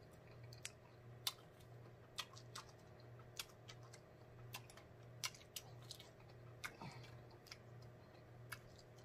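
Faint chewing: soft, scattered mouth clicks and smacks from a person chewing food with his mouth closed, over a low steady hum.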